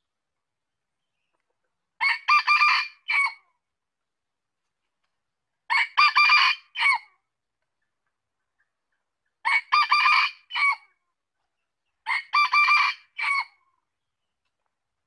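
Red junglefowl rooster crowing four times, every three to four seconds. Each crow is short and broken into a few quick notes, ending in a separate clipped final note.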